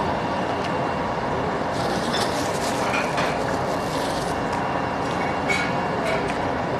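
Steady rushing background noise in a restaurant dining room. About two seconds in there is a rustle lasting a couple of seconds, and a few light clicks of tableware follow.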